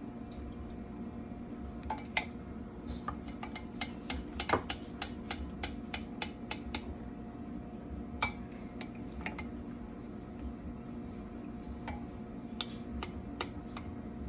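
Spoons clinking and scraping against a ceramic bowl and a pie dish as apple pie filling is scooped into the crust: scattered light clicks and knocks, thickest a few seconds in, over a steady low hum.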